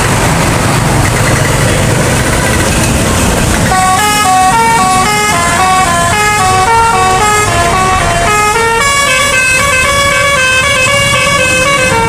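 A heavy bus's engine and road noise close by, then from about four seconds in a telolet bus horn, a multi-note musical air horn, plays a quick tune of stepping notes.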